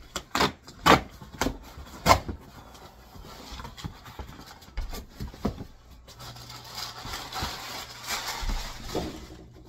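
Cardboard box being opened, with several sharp snaps and tears in the first couple of seconds, then crumpled brown kraft packing paper rustling as it is pulled out, from about six seconds in.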